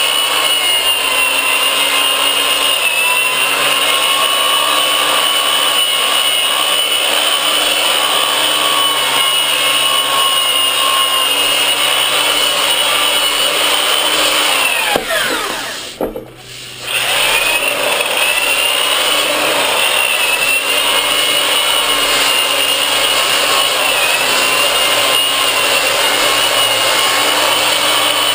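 Milwaukee 5540 sander/polisher running with a foam power pad, sanding the fiberglass surface of a surfboard: a steady motor whine over the rubbing of the pad. About halfway through, the motor winds down and briefly stops, then spins back up and sanding resumes.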